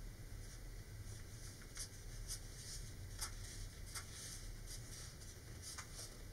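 Faint handling noises: soft scattered ticks and rustles as a paper rocket tube is turned in the hands and wood glue is squeezed from a plastic bottle, over a steady low room hum.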